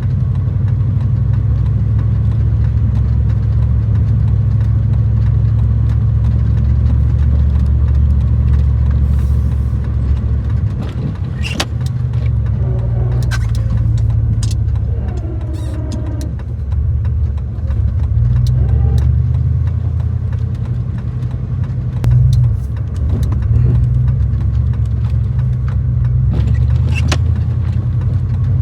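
Gas three-quarter-ton pickup truck's engine running steadily under load while plowing snow, a continuous low drone. A few sharp clicks and knocks come through, about twelve seconds in, again a second later and near the end.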